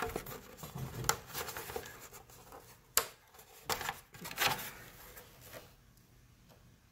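Plastic body panels of a BMW R1250RT being handled: scraping and rubbing with a few sharp clicks as the tab catch is released and the radiator discharge duct is pulled free. The handling dies away near the end.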